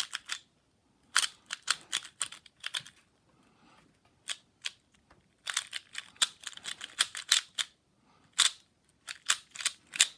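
A Rubik's cube being turned by hand: flurries of quick plastic clicks and clacks with short pauses between them.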